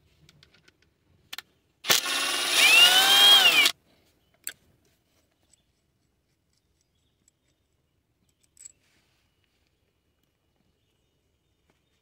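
Small power tool motor whirring for under two seconds, about two seconds in, its pitch rising and then falling as it spins up and winds down. A few light clicks of parts being handled come before and after it.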